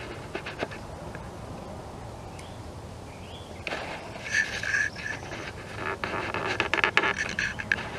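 Outdoor ambience with birds calling, busier in the second half as bursts of rapid chattering notes come in, over scattered clicks and rustles.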